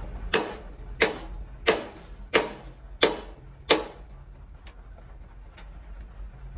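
Hammer striking metal, six evenly spaced blows about two-thirds of a second apart, each with a short ring, then a few faint taps.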